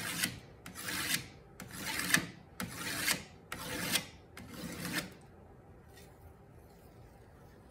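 Hand scraper drawn along the edge of a copper etching plate in repeated strokes, about one a second, scraping off the teeth marks left by the previous tool as the edge is bevelled. The strokes stop about five seconds in.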